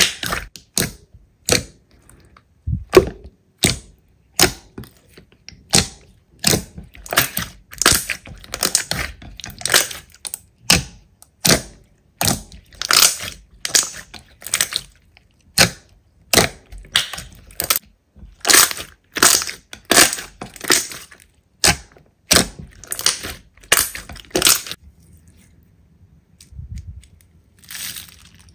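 Crunchy slime being pressed and squeezed by hand, a crackling crunch with each press, one or two a second. The presses stop about 25 seconds in.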